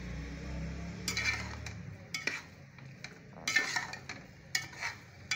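A metal spoon stirring thick cooked moong dal in a metal pot, several scraping strokes against the pot, starting about a second in.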